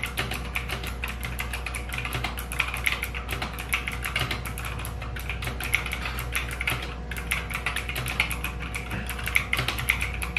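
Rapid, continuous typing on a mechanical keyboard fitted with Alcha Pro Series double-shot PBT keycaps: a dense run of key clicks, many strokes a second, over a faint steady low hum.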